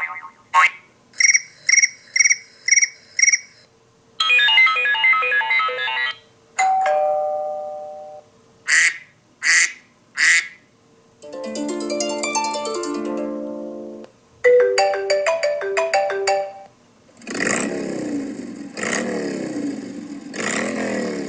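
A run of iPhone stock alert tones on iOS 14, about eight different short electronic jingles played one after another with brief gaps: repeated beeps, bright chimes, a short melodic phrase and sweeping tones.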